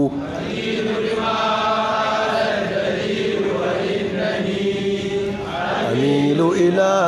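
A man chanting Arabic verse in a slow melody, drawing out long held notes; the voice drops to a lower pitch about six seconds in.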